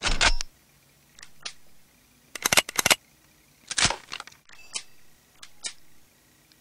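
Short, sharp cracks and clicks: a loud one right at the start, quick clusters of several about two and a half and four seconds in, and a few fainter single clicks between.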